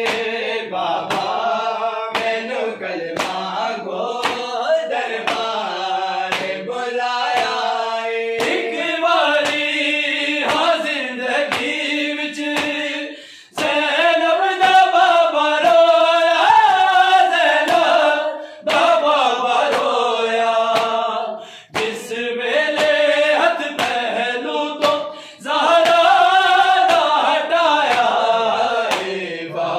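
A group of men chanting a noha, a Shia lament, in unison with no instruments, kept in time by sharp beats about once a second. The chanting breaks off briefly between lines.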